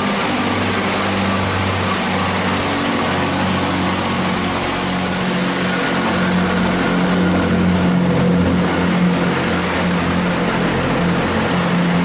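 Diesel engines of a Chiltern Railways Class 165 diesel multiple unit running under power as it pulls away from the platform. The engine note is steady and grows stronger about halfway through.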